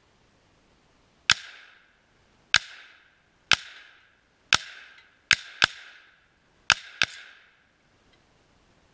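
.308 rifle firing eight shots, each a sharp crack followed by a short ringing tail. The shots come roughly a second apart at first, then in two quick pairs near the end.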